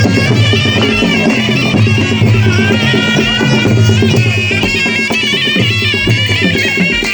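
Nepali panche baja band playing: a shehnai's loud reedy melody over a steady drum beat.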